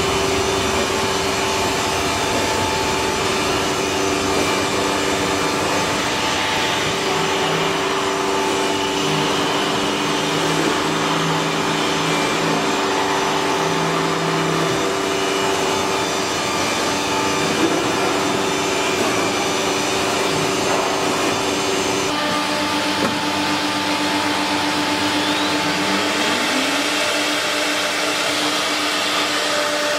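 CNC router cutting a wooden panel: a steady spindle whine over the hiss and rasp of the cut. About two-thirds of the way through the tone changes abruptly, and shortly after a pitch rises briefly.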